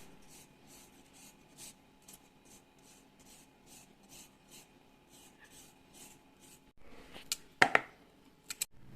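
Rhythmic scraping strokes from food preparation, about two a second, followed near the end by a few louder sharp knocks and clatters.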